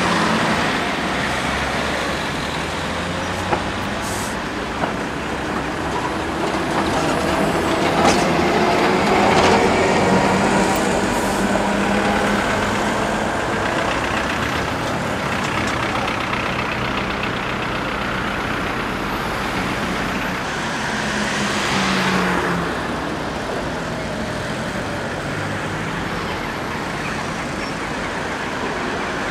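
Busy city street traffic: cars and buses passing, with engines rising in pitch as vehicles pull away and a few brief clicks.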